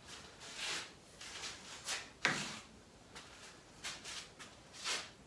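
Grey PVC conduit being handled and set down on a metal saw table: a string of short, irregular plastic scrapes and knocks, the loudest about two seconds in.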